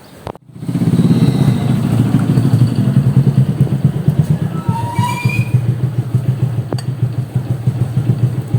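A small engine running steadily and loudly with a fast pulsing beat, starting suddenly about a second in.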